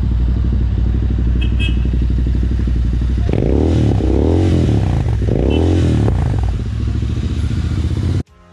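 Royal Enfield Interceptor 650 parallel-twin engine idling with a steady, even pulse. A little past the middle it is blipped about three times, each rev rising and falling in pitch, then it settles back to idle. The sound cuts off suddenly near the end.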